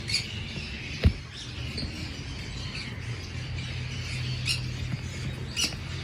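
Birds chirping and squawking off and on, with one sharp knock about a second in and a low steady hum underneath.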